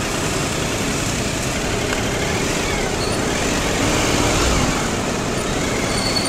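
Motorcycle riding through traffic: a steady rush of engine and road noise, swelling a little about four seconds in.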